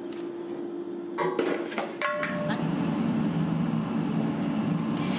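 A large hammered metal degh (cooking cauldron) being handled, with a quick cluster of ringing metal clanks about a second in. A steady workshop machine hum runs beforehand, and a louder steady machine noise takes over after the clanks.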